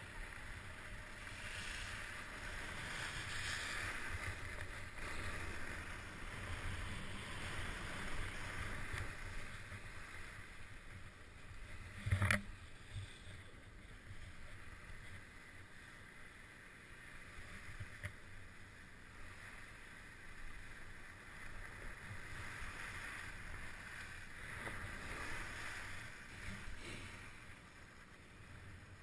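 Ski or board edges scraping and hissing over groomed snow, with wind rumbling on the microphone; the scraping swells and fades with each turn. One sharp knock about twelve seconds in.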